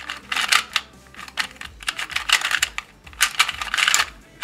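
YJ Guanpo 2x2 speed cube being turned by hand, its plastic layers clicking and clattering in several quick bursts of turns.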